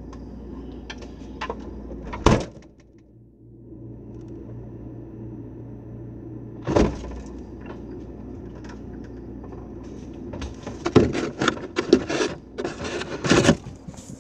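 Knocks and rattles of bottles and the door shelves of an open refrigerator being handled, over a steady low hum: one sharp knock about two seconds in, another about seven seconds in, then a quick run of clattering knocks near the end.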